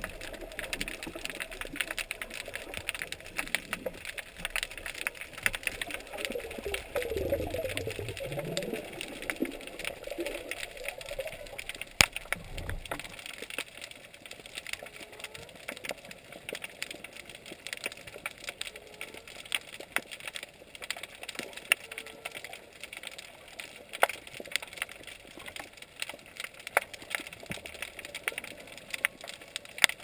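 Underwater crackling of snapping shrimp on a rocky reef: a dense, continuous crackle of tiny sharp clicks. A lower wavering sound comes and goes between about six and eleven seconds in.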